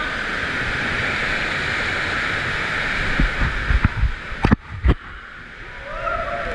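Water rushing under a raft tube sliding down an enclosed water slide tube, a steady hiss. About four and a half seconds in it breaks off, with two sharp knocks half a second apart.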